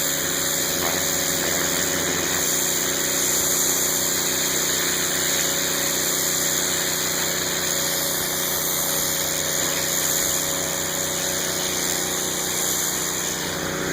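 Pressure washer's 9 hp Honda GX single-cylinder engine running steadily to drive the pump, with a constant hiss of high-pressure water spray.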